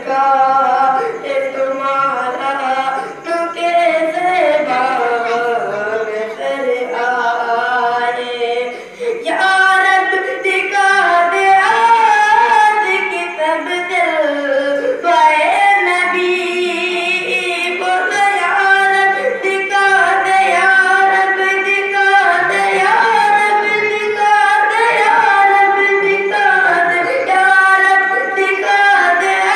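A young boy's solo voice singing an Urdu naat, unaccompanied, in a high, ornamented melody with sliding pitches and long held notes.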